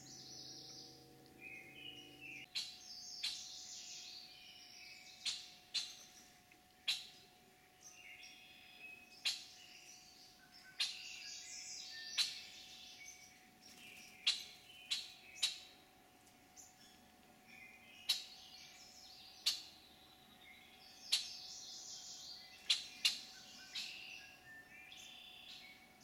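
Songbirds chirping and singing in the woods, broken by sharp clicks every second or two that are the loudest sounds, over a faint steady hum.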